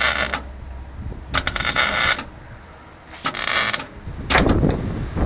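MIG welder laying short stitch welds on a car's quarter panel: a burst of welding sizzle under a second long about every second and a half. Wind rumbles on the microphone near the end.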